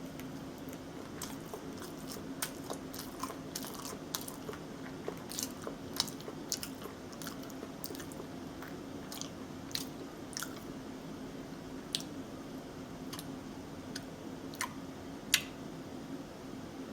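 Close-up chewing of a beer-battered burger, with scattered sharp crunchy clicks as it is bitten and chewed, over a steady low hum.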